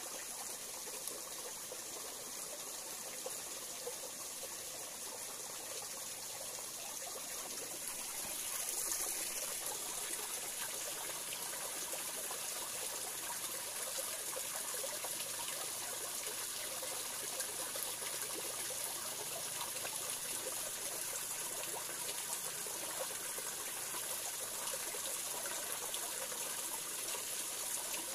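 Small stream of water trickling over rocks into a pool: a steady splashing trickle that grows slightly louder about eight seconds in.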